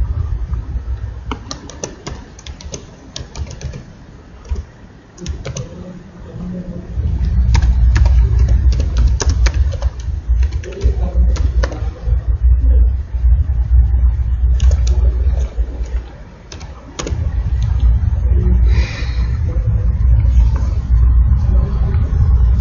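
Computer keyboard typing: scattered key clicks at an uneven pace, over a loud low rumble that fades for a few seconds near the start and again briefly later on.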